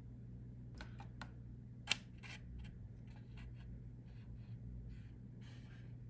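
Light clicks and taps as a wooden meatball skewer is lifted out of a foam oden cup, with one sharper click about two seconds in and a short rustle near the end, over a low steady hum.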